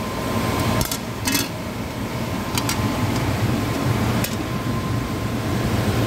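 Steady hum of a running Liebert DS precision air-conditioning unit, with a few sharp metallic clicks and clinks about a second in and again near two and a half and four seconds from the compressor's sheet-metal terminal-box cover and its screw being handled.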